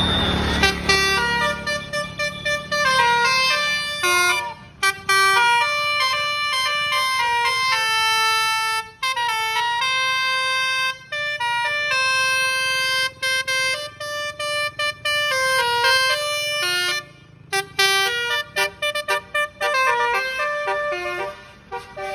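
Bus telolet horn of the basuri type playing a melody: a string of loud horn notes stepping up and down in pitch, several sounding together, with a few short breaks between phrases.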